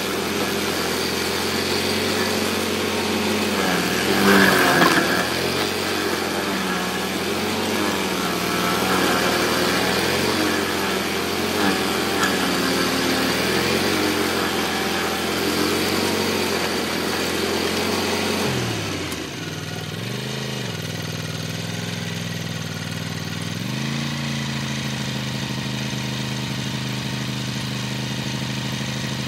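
Stump grinder's petrol engine running under load while its cutter wheel grinds out a golden cane palm stump, the engine note wavering as the wheel is swept, with a brief louder burst about four seconds in. A little over halfway through, the engine drops in speed and settles to a steadier, quieter run as the grinding stops.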